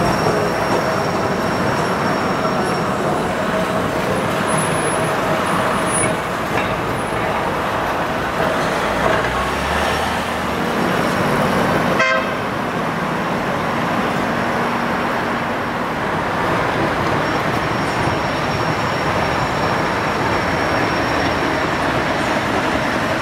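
Steady traffic noise of vehicles running past. The sound changes abruptly about halfway through.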